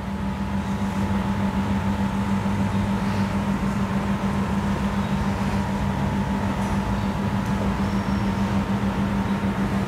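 Steady machine hum with a strong low drone, rising to full level in the first second and then holding even.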